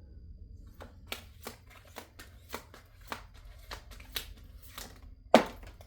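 A deck of reading cards being shuffled by hand: a run of soft, irregular card flicks, with one sharp, much louder snap about five seconds in.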